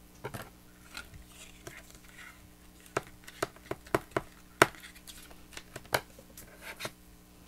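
Irregular sharp taps and clicks of crafting tools against a cardboard book box as hot-glued seam binding is pressed flat, with the thickest run of taps about three to four and a half seconds in. A faint steady hum sits underneath.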